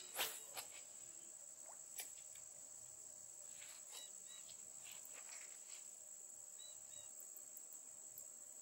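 Steady high-pitched chorus of insects at dusk, one unbroken shrill tone, with a sharp click about a quarter second in and a few fainter ticks after it.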